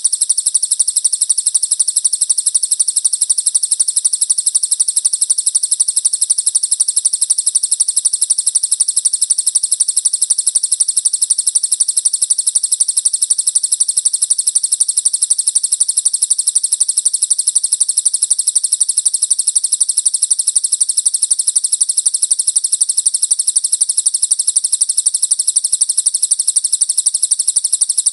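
Recorded songbird song used for training cage birds: one continuous, high-pitched rapid trill of quick repeated notes, steady and without pauses.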